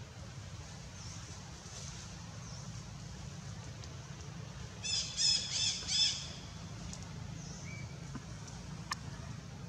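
A long-tailed macaque giving a quick run of about four shrill squeals about halfway through, over steady background noise.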